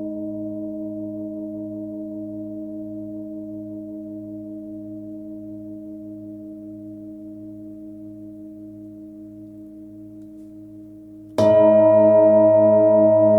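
A 26 cm Nepalese singing bowl with a fundamental near 107 Hz rings and slowly fades, several overtones sounding together with a slow pulsing wobble. About eleven seconds in, it is struck again and rings out loud and full.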